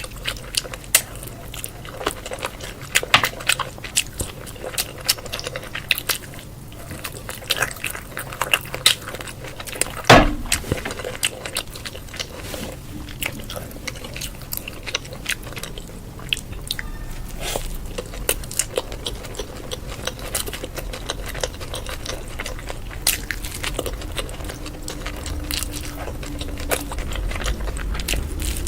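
Close-miked eating: wet chewing and biting with many small irregular clicks and crackles, and one sharper click about a third of the way in.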